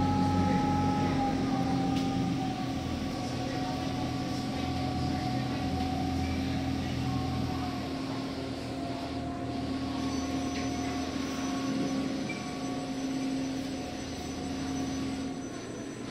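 A passenger boat's engine running steadily, heard from inside the cabin: a constant low hum with a higher whine that slowly drops in pitch over the first ten seconds as the engine eases off.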